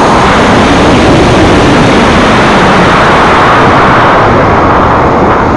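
Loud, steady rush of noise from an Estes Skywriter model rocket lifting off on a C6-5 motor and climbing: the motor's burn and air rushing over the body, as heard by a small keychain camera taped to the rocket.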